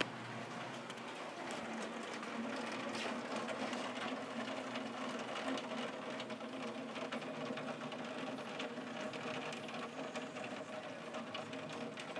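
Heavy rain falling on a hard surface: a dense, steady rattle of countless drop impacts over a rushing noise, with a faint low hum underneath.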